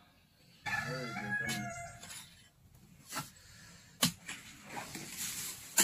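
A rooster crows once, about a second long, near the start. Then come a few sharp knocks of a shovel and hoe striking into the dirt, the loudest near the end.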